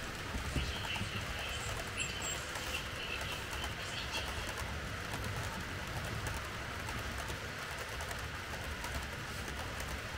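Märklin H0 model train running on the layout's track: a steady rolling rumble and hiss. In the first three seconds there is a faint, high, broken chirping over it.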